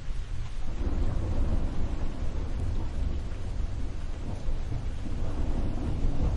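Rolling thunder rumbling low and long as a thunderstorm approaches, swelling in just under a second in, over steady rain.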